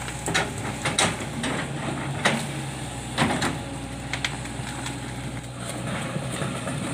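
Hitachi hydraulic excavator's diesel engine running steadily as the machine tracks and turns over muddy ground, with a few sharp cracks in the first half.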